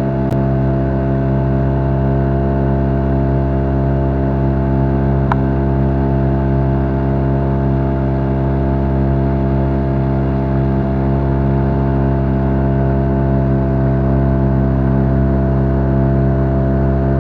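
Boat engine running steadily at an even speed, with a brief click about five seconds in.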